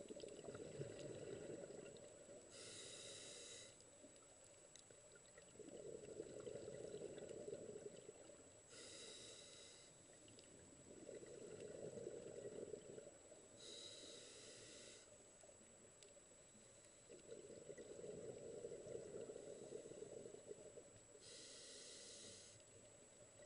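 Faint breathing of a scuba diver through a regulator underwater. There are four slow breaths, each a short hiss of about a second on the inhale followed by a longer burble of exhaled bubbles.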